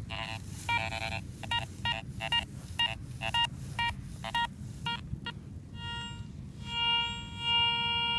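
Metal detector, a Garrett Ace 400, giving short pitched target beeps about twice a second, then longer held tones of the same pitch near the end.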